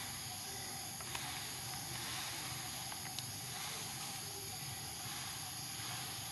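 Steady, high-pitched chorus of insects in tropical vegetation, with two faint clicks, one about a second in and one about three seconds in.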